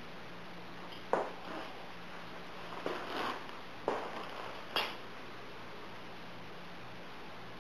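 Four short, sharp knocks or clicks, the first about a second in and the last about five seconds in, over steady room hiss and a faint low hum.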